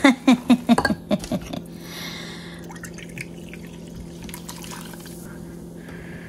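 Wire whisk beating a thin rice-flour batter in a glass bowl, about five quick strokes a second for a second and a half. Then club soda is poured from a plastic bottle into a plastic measuring cup with a hissing splash.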